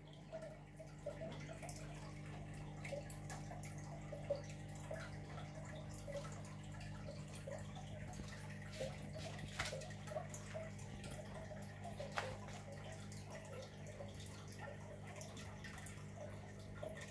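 Planted aquarium running: a steady low hum of its water pump with water trickling and many small, irregular bubbling pops.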